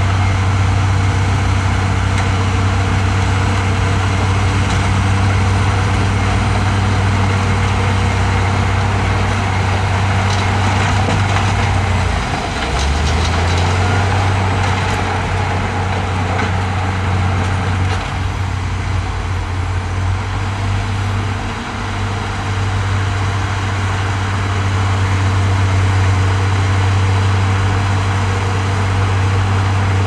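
Heavy diesel engine of earthmoving machinery running with a steady low drone. A few light clanks come around ten seconds in, and the engine note dips briefly about twelve seconds in before picking back up.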